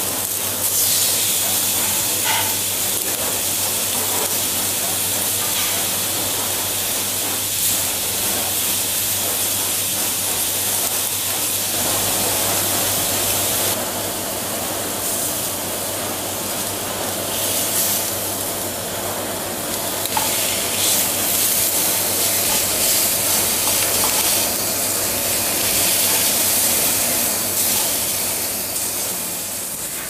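Pork loin steaks sizzling steadily on a hot ridged grill pan.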